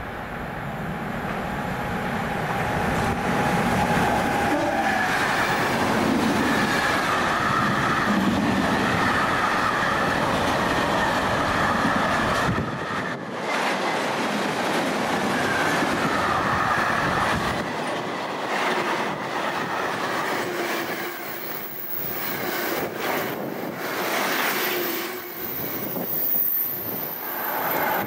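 Fast freight train of car-carrier wagons behind a Class 88 locomotive passing close by. A steady rumble and clatter of wheels on rail builds over the first few seconds, with a wavering high ring from the wheels; the deep rumble drops away about halfway through while the wagons keep running past.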